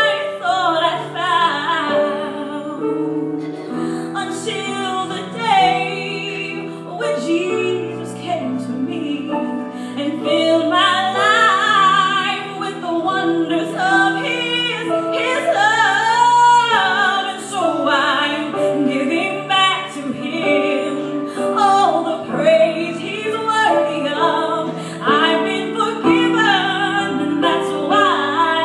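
A woman singing a slow gospel song solo, with long held and sliding notes, over sustained instrumental accompaniment.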